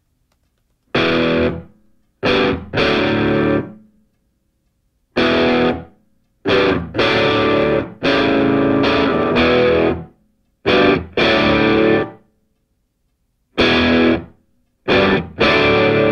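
Rock music track: distorted electric guitar chords played in stop-start stabs, each held for a second or less and then cut to dead silence, running on without a break near the end.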